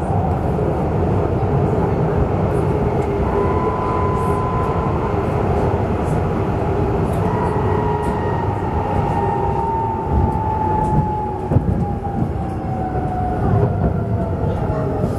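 Duewag B80D light-rail car running between stops, heard from inside the car: a steady rumble of wheels and running gear. Over the second half a motor whine slides slowly down in pitch as the car slows. A few sharp knocks come about ten to twelve seconds in.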